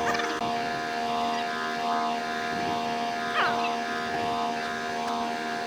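Steady mechanical drone of a party fishing boat's onboard machinery, a constant hum with a regular swelling about twice a second.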